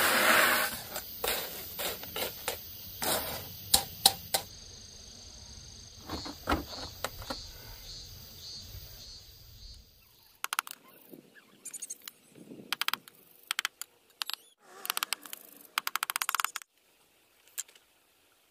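Crushed gravel pouring out of a bucket onto a mortar bed, a loud rattling rush at the start followed by scattered clicks and knocks as stones settle. In the second half, concrete blocks scraping and knocking against each other and the gravel as they are set in place.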